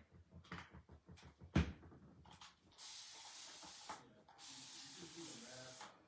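A spray bottle misting water onto a silk-screen transfer to wash off paste, in two long hissing sprays, one after the other from about halfway through. A sharp knock comes about one and a half seconds in.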